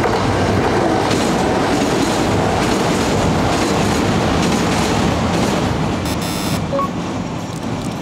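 A Kintetsu Minami-Osaka Line electric train passing close by on a railway bridge, its wheels clattering over the rails in a loud, steady rush that eases slightly near the end. A brief high-pitched sound comes through about six seconds in.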